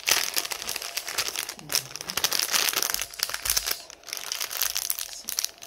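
Clear plastic bags crinkling as hands handle and fold them, an irregular crackling with short pauses.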